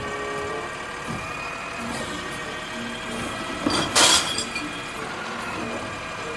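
Automated side-loader garbage truck running steadily while its arm lifts a wheelie cart and tips it into the hopper, with a brief loud clatter about four seconds in as the cart is raised and emptied.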